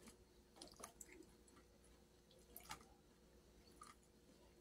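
Near silence, with faint wet chewing and a few soft mouth clicks as food is eaten.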